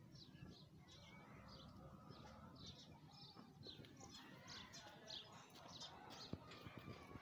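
Faint chirping of small birds, many short high chirps repeating throughout, over a low background rumble.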